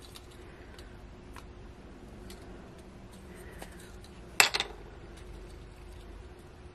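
Small metal clicks and ticks of jewelry pliers working an earring's jump ring and hook, with one sharp, louder clack and a quick second one about four and a half seconds in.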